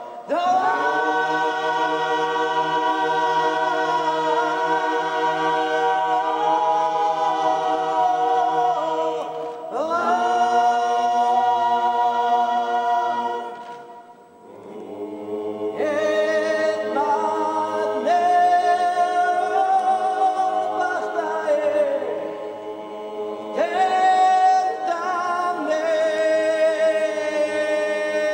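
A young girl's powerful solo voice singing a slow sacred chant unaccompanied, long held notes with wavering turns, over a low steady drone from other voices. The singing breaks between phrases about ten seconds in and again, briefly, about fourteen seconds in.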